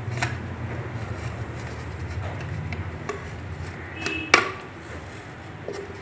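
Kitchen knife cutting and scraping through a thin plastic bottle, with a few light clicks and one sharp snap about four seconds in, over a steady low hum.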